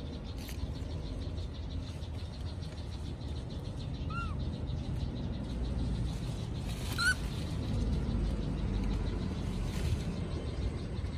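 A steady low outdoor rumble with two short, arching high-pitched calls, one about four seconds in and another about three seconds later.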